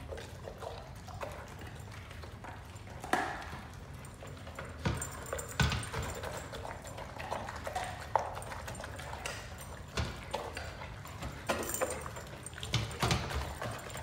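A Great Dane eating raw food from a stainless steel bowl in a raised wooden feeder: chewing and licking, with irregular knocks and clinks of the metal bowl, the loudest a little after five seconds in.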